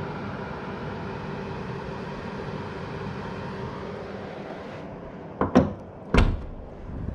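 Steady background hum, then two sharp slams about two-thirds of a second apart as the front bonnet of a Peugeot e-208 is shut, the second one heavier and deeper.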